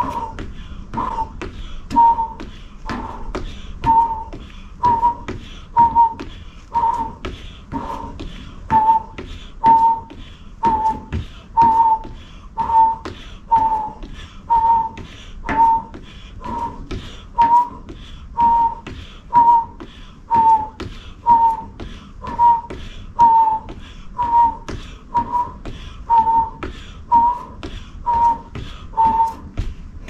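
A metal folding chair knocking and squeaking about once a second under repeated step-ups, each step bringing a short high squeak with a knock.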